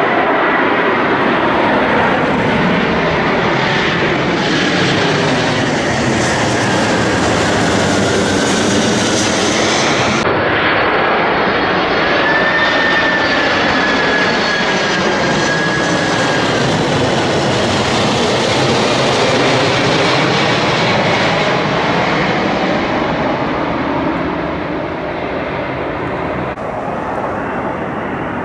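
A four-engined Boeing 747 jumbo jet passes low overhead on approach to land with its landing gear down. Its jet engines make a loud, steady rush with a high whine in it, easing off near the end as it moves away.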